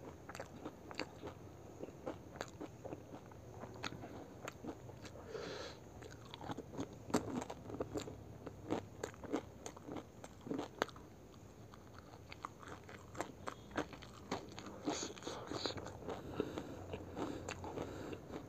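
Close-miked chewing of pani puri: crisp fried puri shells crunching between the teeth in many sharp clicks, busiest and loudest around the middle, with wet mouth sounds between them.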